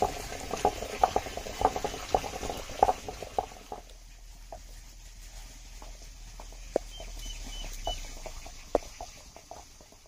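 Knife chopping onions on a wooden cutting board: irregular sharp taps, several a second for the first few seconds, then only a few scattered taps.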